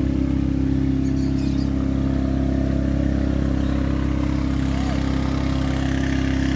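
An engine running steadily at a constant pitch, a low even hum with no revving. A few faint short chirps sound over it.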